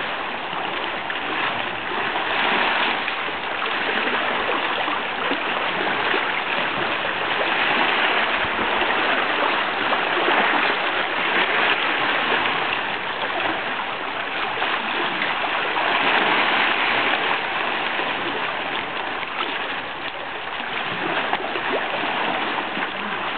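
Steady wash of sea water, rising and falling gently, with splashing from a person wading slowly into the sea.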